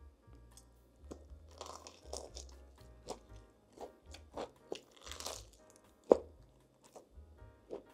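Close-up crunching and chewing of crispy breaded Popeyes fried chicken: a string of crisp bites and chews, the sharpest crunch about six seconds in. Soft background music plays underneath.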